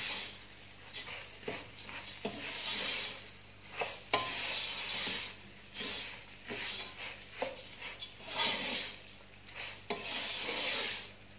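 Wooden spoon stirring and scraping rice and diced carrots frying in a nonstick pot: a swishing scrape about every second and a half, with small knocks and a light sizzle. The rice is being fried in oil before the water goes in.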